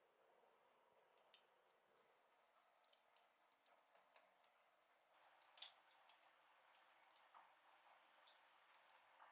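Scattered small, sharp clicks and taps over a faint hiss, typical of small metal or plastic parts and hand tools being handled. The loudest click comes about halfway through, with a quick cluster of them near the end.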